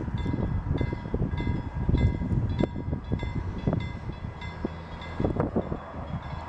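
Narrow-gauge steam locomotive chuffing and rumbling as it pulls its train away, with uneven swells of exhaust beats. A repeated high ringing tone sounds behind it.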